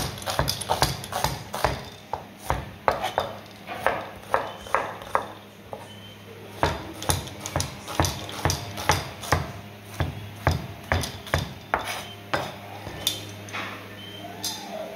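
Chef's knife dicing an onion on a plastic cutting board: a rapid run of chopping knocks, about three to four a second, with a short pause about five seconds in and sparser strokes near the end.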